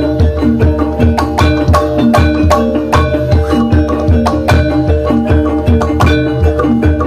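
Gamelan accompaniment for ebeg: tuned mallet-struck keyed instruments repeat a short melodic figure over steady kendang hand-drum strokes.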